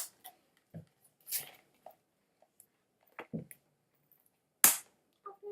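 Scattered short crinkles, taps and rustles of a toy's plastic packaging being handled and worked open by hand. The loudest one comes near the end.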